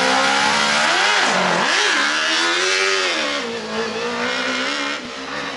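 Engine of an open-wheel Terrapin autocross car revving hard as it launches and accelerates on course. Its pitch dips sharply twice in the first two seconds, then climbs and holds steady.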